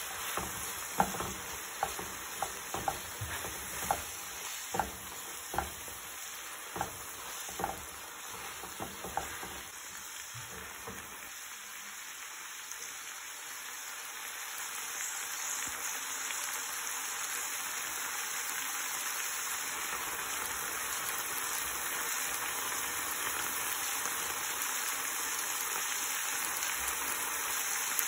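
Food frying in oil in a pan, sizzling steadily. A stirring utensil knocks against the pan about a dozen times in the first ten seconds, then only the sizzling goes on, a little louder near the end.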